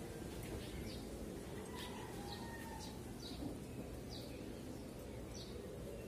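A small bird chirping: short, high notes that each drop quickly in pitch, repeating about twice a second, over a steady low background rumble.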